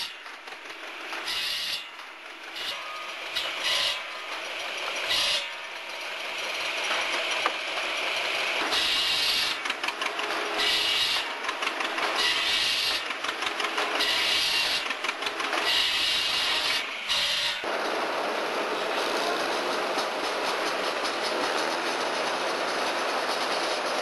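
Tractor-driven circular saw on a flat belt cutting firewood logs: a string of rasping cuts, each a second or so long, over a steady running hum. About 18 seconds in it gives way abruptly to the steady, even noise of a tractor working a snowblower.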